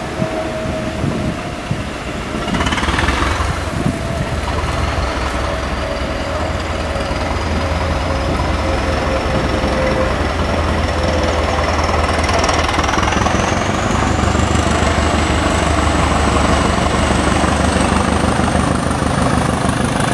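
Two coupled British Rail 'Thumper' diesel-electric multiple units accelerating away, their English Electric diesel engines giving a steady deep thumping throb. Over it a high whine climbs slowly in pitch as the train gathers speed, with a brief louder rush about three seconds in.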